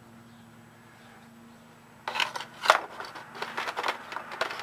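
Handling noise: a run of sharp clicks and scrapes starting about halfway through, over a faint steady low hum.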